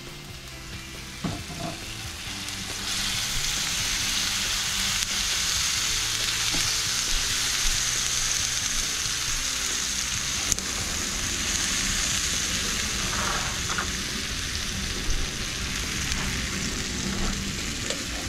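Chopped tomato frying in oil with shallots and garlic in a nonstick pan, stirred with a silicone spatula. The sizzle grows much louder about three seconds in, once the wet tomato hits the hot oil, and then holds steady.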